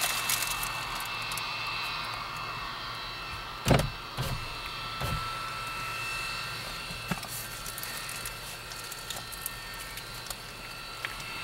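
Railway jet snowblower's jet engine running steadily as it blasts snow off the track: a rushing blast with a high, steady whine of several tones. A few dull thumps sound about four and five seconds in.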